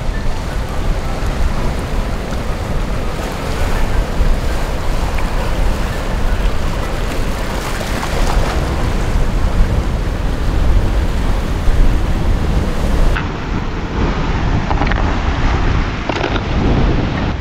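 Wind buffeting the microphone in gusts over the wash of waves on the shore. The sound turns duller about thirteen seconds in.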